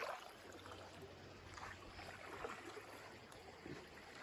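Faint water lapping and sloshing against a low, steady outdoor background hiss.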